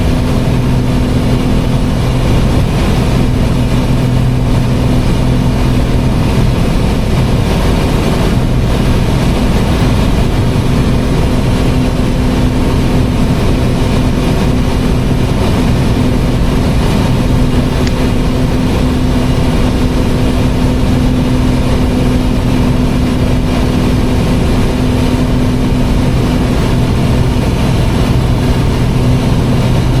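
Piston-engine airplane's engines and propellers running steadily in a climb, a constant loud drone with a low hum, heard from inside the cockpit.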